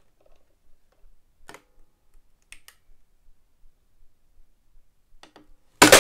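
A few faint clicks and taps of hands on two wooden music boxes, then a loud sharp clap of the wooden lids dropped shut near the end. The clap sets a chord of music box notes ringing, which fades slowly.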